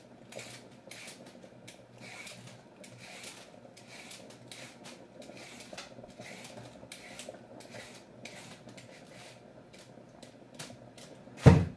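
A carrot being peeled by hand: repeated short scraping strokes, roughly two a second, irregular. Near the end there is a single loud thump.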